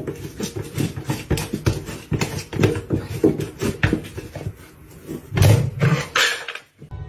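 A rapid, irregular clatter of short taps and knocks, with two louder thumps a little over five and six seconds in.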